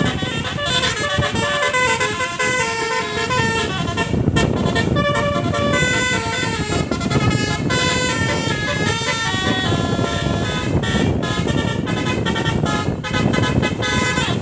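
Tour bus's telolet musical air horn, a multi-trumpet electric air horn, playing a Minang melody. The notes step quickly up and down over a steady background rumble.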